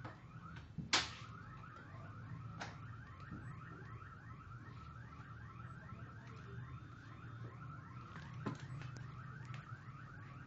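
Manual V-Tec 868 guillotine paper cutter being worked by its lever, with sharp clacks about a second in, at about two and a half seconds, and again near the end; the first is the loudest. Under it runs a steady rapid series of short rising chirps, about four a second, over a low hum.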